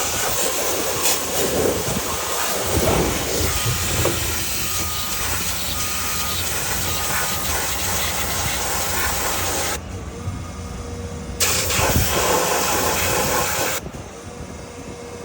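Pressure washer spraying with a steady hiss, cutting off for a second or so about ten seconds in, then starting again and stopping near the end. An engine hums steadily underneath.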